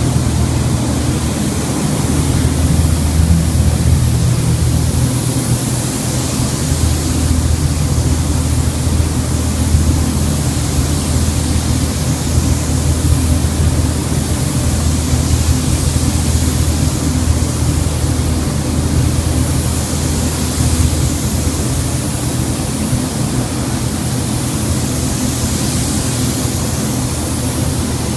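Steady hiss of a gravity-feed spray gun's compressed air as it sprays paint, over the constant low hum and rush of the spray booth's ventilation.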